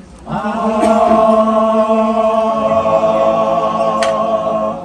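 Men's a cappella chorus holding one sustained chord in several parts, starting a moment in and held steady for about four seconds until it breaks off at the end.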